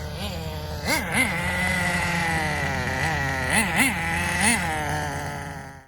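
Nitro RC car's small two-stroke glow engine running and revving, its pitch swelling up and back down about five times as the throttle is blipped while the car is driven. The sound cuts off abruptly at the end.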